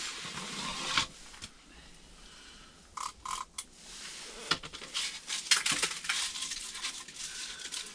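Handling noises: scattered clicks, light knocks and rattles, with a short hiss in the first second.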